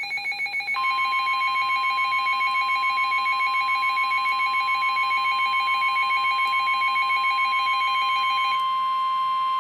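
Emergency Alert System attention signal announcing a severe thunderstorm warning. A loud, steady alarm tone joins a fast-pulsing tone about a second in, and the pulsing drops out about a second before the end, leaving the steady tone alone.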